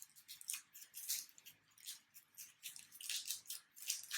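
Foil Pokémon booster-pack wrapper crinkling and tearing as it is opened, in quick, irregular rustles.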